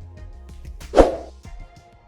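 Background music with a single loud hit about a second in, then fading away toward the end.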